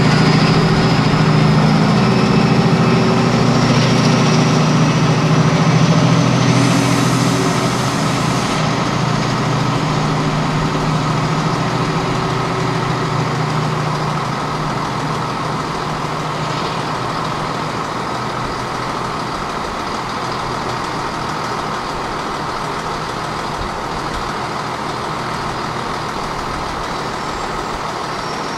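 Class 68 diesel-electric locomotive running with its train, the deep engine sound loudest for the first six seconds, then easing down. A thin rising whine runs through the first eight seconds, and a short hiss comes about seven seconds in.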